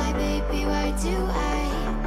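Background electronic music, with a held bass note that changes pitch twice and light regular percussion on top.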